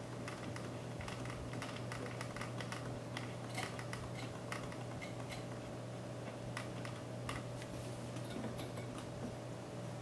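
Light, irregular metal clicks and ticks as fingers turn the mounting thumb screws to tighten down a Koolance CPU-370 water block, over a steady low hum.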